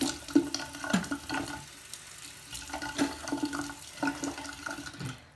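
Bathroom sink tap running, with splashes as water hits the basin. The flow is shut off near the end.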